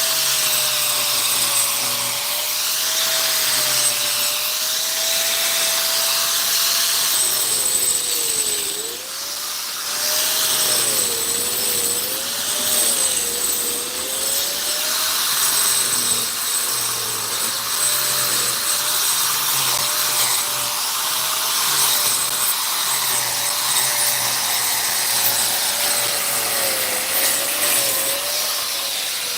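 An electric power tool's motor running continuously with a high whine. Its pitch wavers and dips several times, as if the tool is being pushed into the work, most clearly around a third of the way in.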